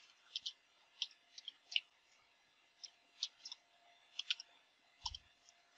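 Computer keyboard keys clicking faintly and unevenly as a command is typed, about a dozen key presses.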